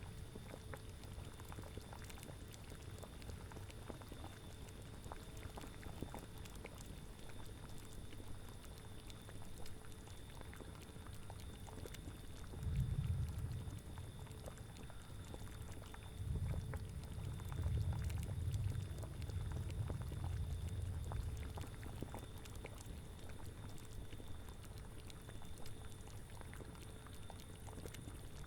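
A cauldron of liquid boiling, bubbling and popping steadily. Low rumbling swells of wind come in briefly about 13 seconds in and again for several seconds a little later.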